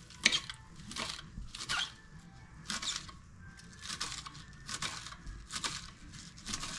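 Kitchen knife slicing through fresh green onion stalks on a wooden cutting board: crisp, crunchy cuts at an uneven pace, about one or two a second.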